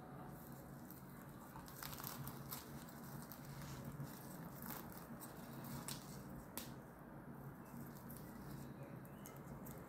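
A fried, flaky paratha being torn apart by hand: faint crinkling with scattered sharp crackles as the crisp layers pull apart, over a low steady hum.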